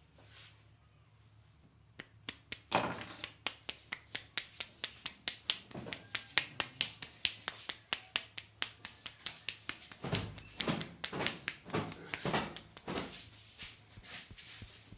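Rapid rhythmic percussive tapping of hands on the head during a head massage, about three to four strikes a second, starting about two seconds in. Near the end the strikes become a few heavier, duller slaps.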